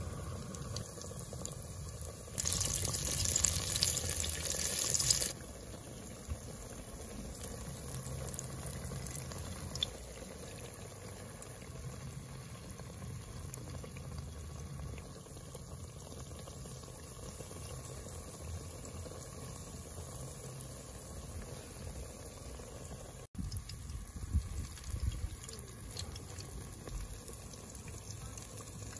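Battered fritters deep-frying in hot oil: a steady low sizzle and bubbling. About two seconds in, a louder sizzle rises for about three seconds as fresh batter is spooned into the oil.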